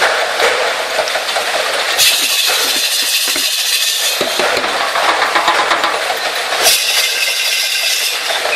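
Ox-driven Persian wheel (rahat) water lift running: a steady hissing rush with rapid clattering from its gearing, swelling louder about two seconds in and again near the end.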